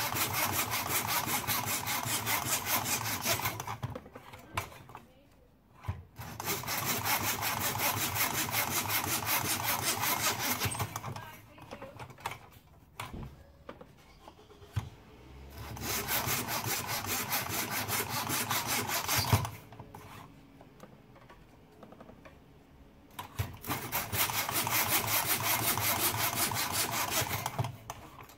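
Hand backsaw in a miter box cutting through wooden dowels with quick back-and-forth strokes. It comes in four bouts of a few seconds each, with short pauses between cuts.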